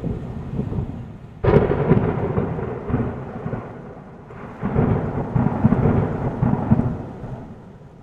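Thunderstorm: a sudden crack of thunder about one and a half seconds in that rumbles on, then a second rumble swelling about four seconds in and dying away near the end, over a steady hiss of rain.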